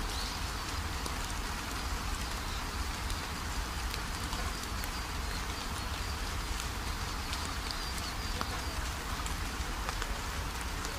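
Rain and wet-road noise heard from inside a moving car: an even hiss with scattered sharp ticks of drops, over a steady low rumble.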